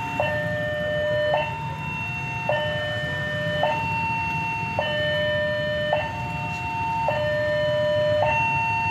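Two-tone electronic warning siren alternating between a high and a low note, each held a little over a second, over a low steady rumble.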